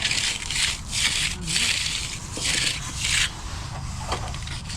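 Hand finishing tool, a trowel or float, scraping over wet concrete in about five rasping strokes, then working more softly near the end, with a steady low rumble underneath.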